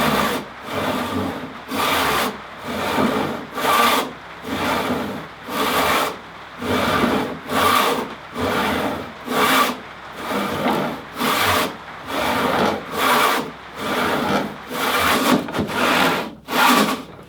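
Hand saw cutting wood in steady, even strokes, a little more than one a second.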